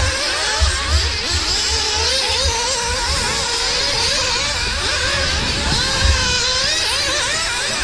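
Several nitro RC buggies' small two-stroke glow engines screaming at high pitch, their notes overlapping and rising and falling constantly as the cars accelerate and brake around the track.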